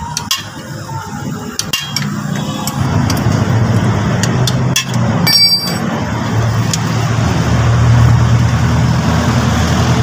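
A few sharp clicks of a wrench on the inhibitor switch's metal bolts in the first two seconds, and a short metallic clink about halfway through. Under it, a steady low engine rumble builds from about two and a half seconds on and becomes the loudest sound. It does not come from this car, whose battery is disconnected.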